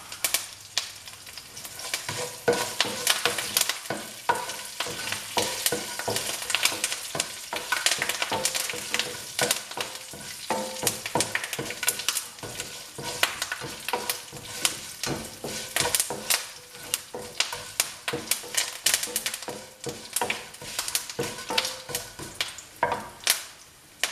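Mustard seeds, urad and chana dal and curry leaves sizzling in hot oil in a non-stick frying pan, with frequent sharp crackles, while a spatula stirs and scrapes them around the pan.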